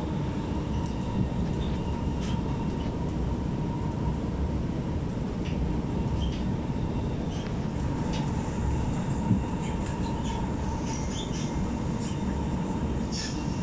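Alstom R151 metro train heard from inside the car while running along elevated track: a steady rumble of wheels on rail, with a steady faint tone over it and light scattered clicks and rattles. There is one sharper knock about nine seconds in.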